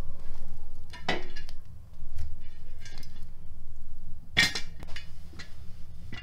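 Metal cookware clanking: a lid knocked against an aluminium pot about a second in, then a louder ringing clank about four and a half seconds in as a heavy iron saj griddle is set down on a metal bucket of coals, with lighter clinks between.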